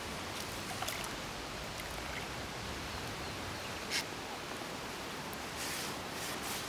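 Steady outdoor ambience of wind and small waves lapping at the edge of a lake, with a brief sharp click about four seconds in.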